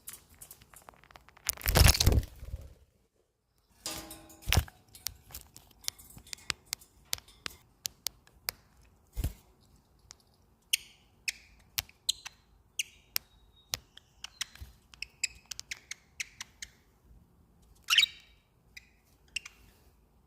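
Pet budgerigars making small sounds: a loud rustle about two seconds in, then steady light clicks and scratches with short high chirps scattered through the second half, one louder chirp near the end.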